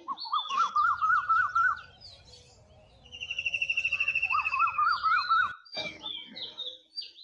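Birds chirping and calling: a string of quick chirping notes, then a fast rattling trill about three seconds in, the chirping string again, and sharp high chirps near the end.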